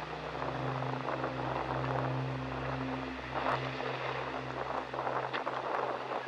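A steady low hum, like a motor, under a constant rushing hiss like wind, with a brief dip in the hum a little past the middle.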